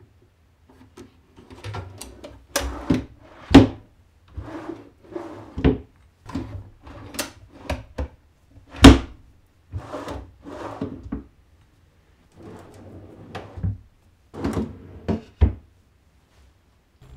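Plywood drawers sliding in and out on metal ball-bearing drawer slides. Each slide gives a short rolling rumble and ends in a sharp knock as the drawer shuts against the cabinet, about ten times in a row.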